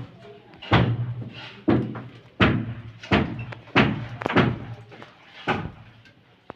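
A series of about seven heavy knocks at uneven intervals, each with a short low ring after it.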